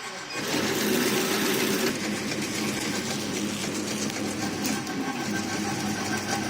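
Incense stick counting and packing machine starting up about half a second in and running steadily with a low hum.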